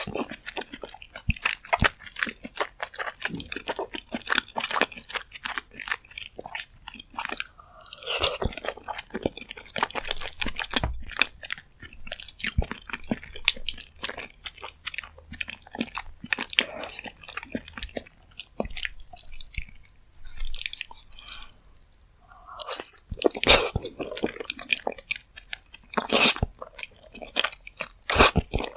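Close-miked chewing of rose jjimdak, spicy braised chicken in a creamy sauce: a steady stream of quick wet smacks and crunchy clicks, with a few louder bursts near the end.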